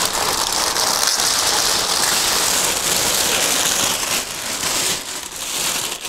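A pink anti-static plastic bag crinkling and rustling loudly as it is pulled down off a metal network-switch chassis, a dense continuous crackle that eases off near the end.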